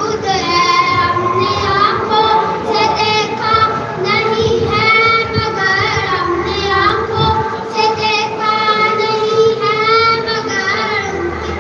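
A boy singing a devotional piece into a microphone, carried over a PA, in long held, wavering melodic phrases.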